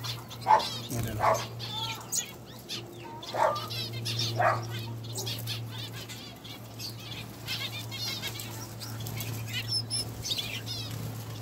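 Small aviary finches chirping and twittering in quick, high repeated calls, with a few brief wing flutters, over a steady low hum.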